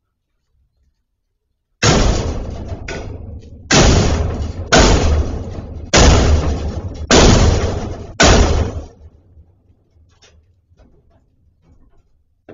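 Six loud bangs about a second apart, each ringing on briefly: a door or barred gate being slammed or struck.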